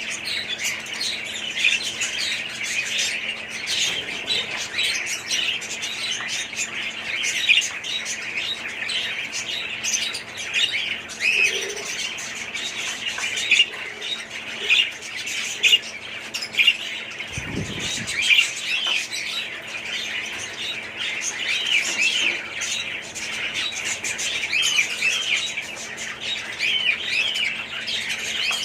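Many budgerigars chattering and chirping together, a dense, continuous flock sound. There is one low thump about two-thirds of the way through, over a faint steady hum.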